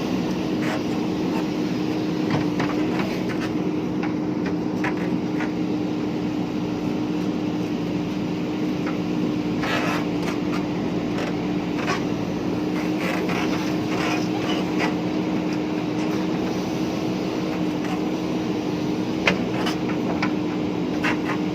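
JCB 3DX backhoe loader's diesel engine running at a steady, unchanging speed, with scattered sharp clicks and knocks from the machine at work.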